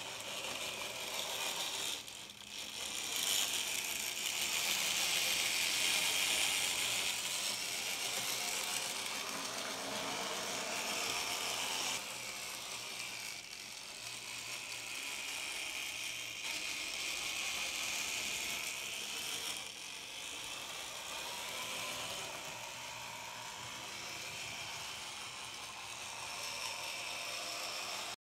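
N gauge model diesel locomotive and its wagons running along the track, the motor and wheels making a steady high mechanical whir that grows louder a few seconds in.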